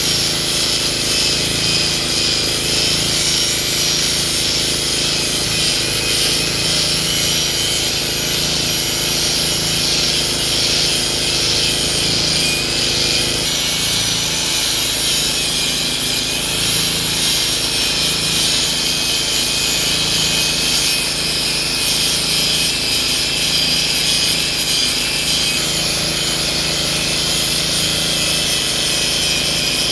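Hitachi excavator working steadily, chipping an oil palm trunk: the diesel engine drones under load, with a steady high whine over it and wood being rasped and torn.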